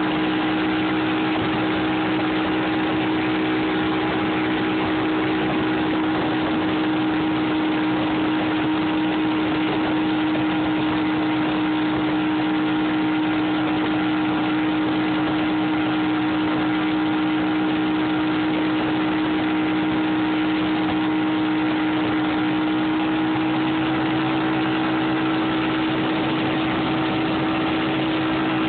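Mercury 225 outboard motor running at a steady high speed, a constant unchanging drone over the rushing water of the boat's wake.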